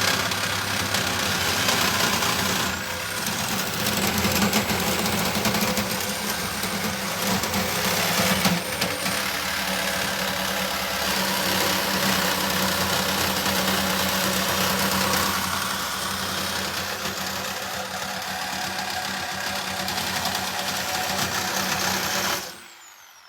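Power cutting tool running and cutting into an ATM's steel casing: a steady motor hum under a loud, hissing grind of metal being cut. It stops suddenly near the end.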